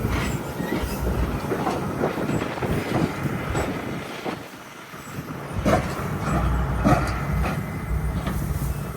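Tractor on the road towing two empty grain wagons: the engine runs while the empty wagons rattle and clank over bumps. The noise eases briefly about halfway, then comes back as a heavier rumble.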